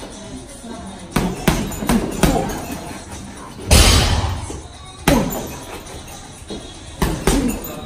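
Boxing-gloved punches landing on a hanging heavy bag in uneven bursts: a quick run of about four, the hardest single blow a little under four seconds in, another about a second later, and a pair near the end.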